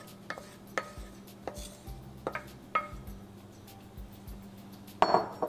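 A wooden spoon knocking against a bowl while scooping chicken pieces out of it into a kadai of sauce: five or six separate sharp taps, each with a short ring, then a louder clatter of dishware near the end.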